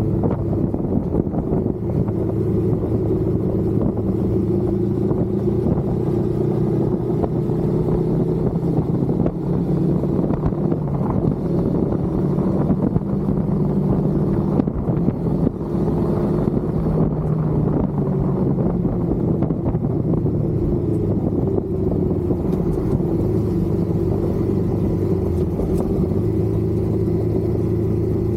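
Suzuki Inazuma motorcycle engine with its stock exhaust, running steadily under way. Its pitch shifts up and down in steps several times as the throttle and gears change.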